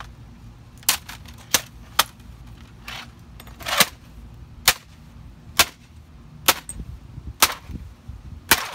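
Hammer blows on a laptop's case lying on concrete: about ten sharp, loud strikes, roughly one a second.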